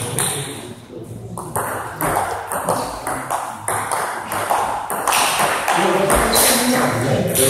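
Table tennis rally: the celluloid ball clicking sharply back and forth off the rubber paddles and the table top, a quick uneven series of light ticks.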